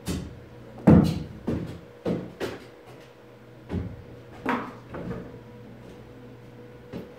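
Irregular knocks and thumps of a person climbing up onto a steel stair stringer, about eight of them with the loudest about a second in. A faint steady hum runs underneath.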